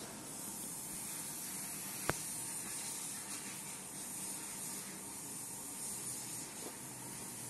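Steady hiss with a faint steady hum under it, broken by one sharp click about two seconds in.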